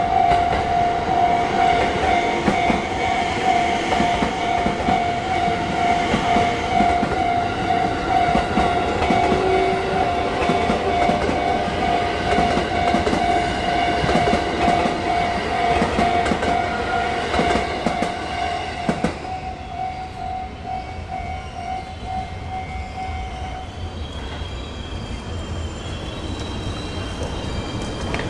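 A train passing over a Japanese railway level crossing, its wheels clattering and rumbling over the rails, while the crossing's electronic warning bell rings with a rapid pulsing tone. The rolling noise fades late on, and the warning bell cuts off about three-quarters of the way through.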